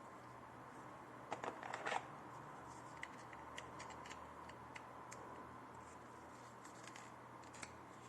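Light plastic clicks and rattles from a trimmer set's parts being handled: a quick cluster about a second and a half in, then scattered single clicks, over a faint steady hum.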